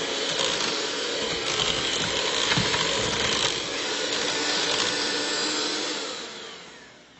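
Cuisinart electric hand mixer running steadily, its beaters whipping mashed potatoes in a stainless steel pot, with a few knocks of the beaters against the pot. The motor noise dies away near the end.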